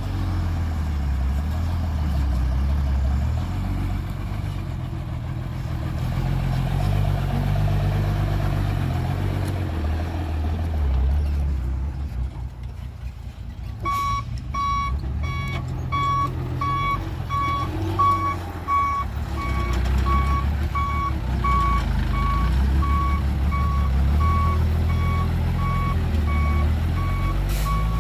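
Heavy diesel engine of a construction vehicle running and rising in pitch for a few seconds. About halfway through, a reversing alarm starts beeping steadily, a little over once a second, as the machine backs up.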